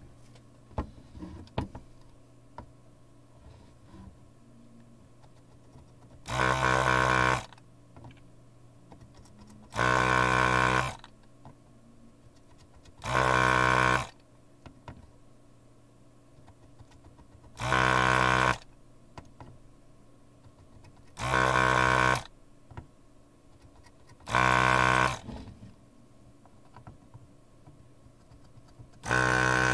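Electric desoldering gun's built-in vacuum pump running in short bursts of about a second, seven times a few seconds apart, sucking molten solder from a DIP socket's pins.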